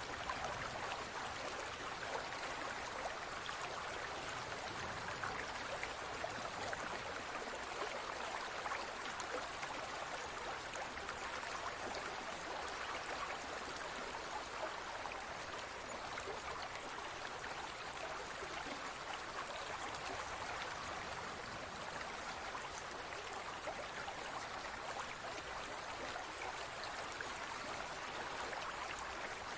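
Water in a large fish tank trickling and splashing steadily, with many tiny droplet-like ticks.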